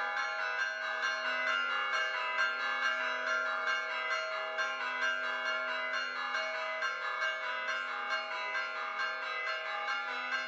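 Church bells pealing, struck over and over in quick succession with the tones ringing on and overlapping.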